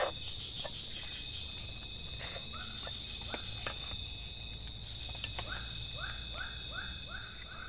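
Tropical forest night chorus of insects, a steady high-pitched ringing, with a frog calling in short repeated notes: a few at first, then a quick run of about three a second in the second half. A few faint clicks are heard as well.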